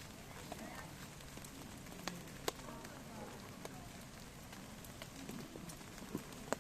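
Wood fire crackling, with a few sharp pops spread through the crackle.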